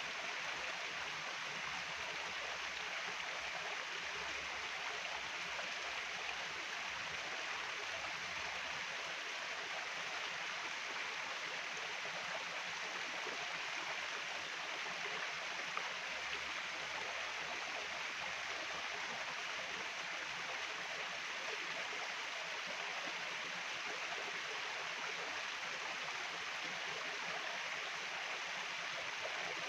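Steady rush of a flowing stream, an even hiss of running water that holds unchanged throughout.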